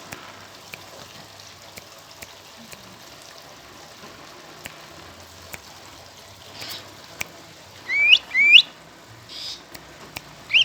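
Sooty-headed bulbul (kutilang) giving two quick, loud rising whistled calls about eight seconds in, after a stretch of faint background with scattered light clicks.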